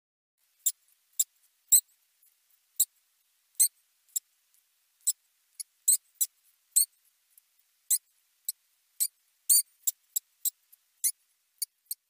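Water vole squeaking: a string of short, high-pitched squeaks at uneven intervals, about two a second.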